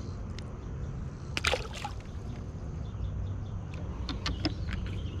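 A small bluegill dropped back into the water with a short splash about a second and a half in, over a steady low rumble. A few light clicks follow near the end.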